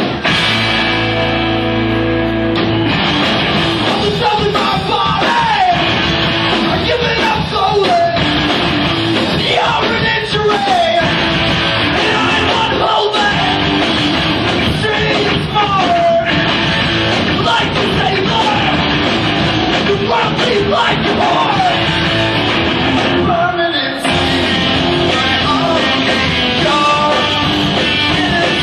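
Live rock band playing loud distorted electric guitars, bass and drum kit, opening on a held chord for the first few seconds before the full band comes in. Sung vocals start a few seconds in.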